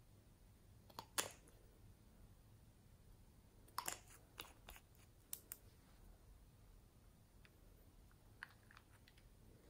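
Near silence broken by small sharp clicks and taps of a glass nail polish bottle and its cap being handled: two about a second in, a cluster around four to five and a half seconds in, and a few softer ones near the end as a small green container's cap comes off.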